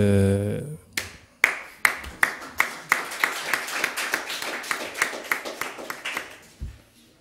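Hand clapping: steady claps, about two or three a second, that grow denser and then die away about six seconds in.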